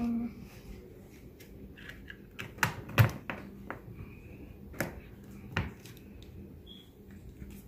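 A plastic cup and its snap-on lid clicking and knocking as they are handled and the lid is fitted: a handful of separate sharp clicks, the loudest about three seconds in.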